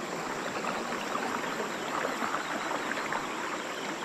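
River current rushing and gurgling steadily over rocks and submerged logs in a shallow riffle.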